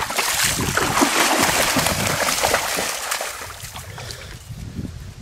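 A dog splashing through shallow water, loudest over the first few seconds and fading away near the end.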